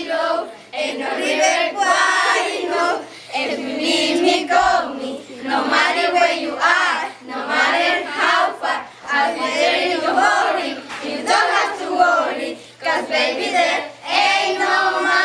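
A group of girls singing together in unison, a cheer-like song sung in short phrases with brief breaks between them.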